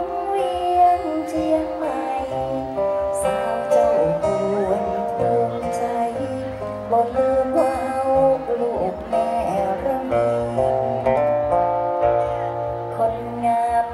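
Live amplified music: a woman singing a Thai song through a microphone over guitar accompaniment with a bass line.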